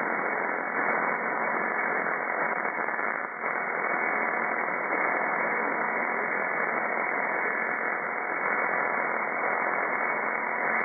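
Amateur shortwave radio receiver hissing with steady band noise between transmissions, with a few faint steady whistles in the noise.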